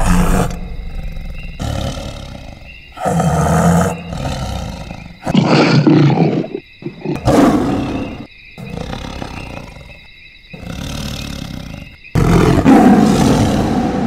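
Lion roaring: a series of loud, deep calls, each up to about a second and a half long, coming every one to two seconds. A steady high chirring, like night insects, runs underneath until shortly before the end.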